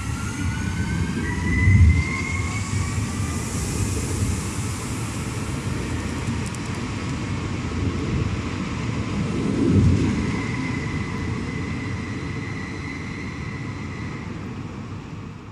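Alstom Regiolis regional train pulling out and accelerating away: the traction motors' whine rises in pitch over the first few seconds, then holds steady, over a continuous rumble of wheels on rails. The rumble swells twice, about two seconds in and about ten seconds in.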